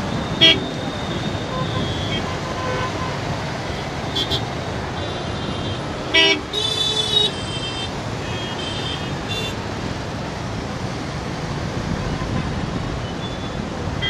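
Congested road traffic of motorbikes, auto-rickshaws, cars and buses running and creeping along, with horns honking repeatedly: a short loud toot about half a second in, another near six seconds followed by a longer honk, and several lighter toots in between and afterwards.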